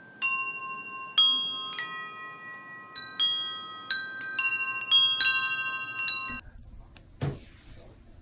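Chimes struck one after another as a short intro tune, about a dozen clear ringing notes overlapping and dying away. They cut off suddenly about six seconds in, leaving faint room tone with one brief knock.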